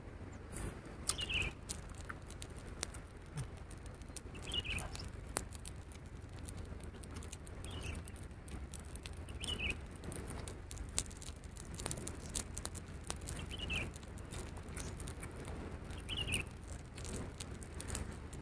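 A bird gives a short, falling chirp six times, a few seconds apart, over a steady low background. Many faint clicks run through it, close-up sounds of someone eating.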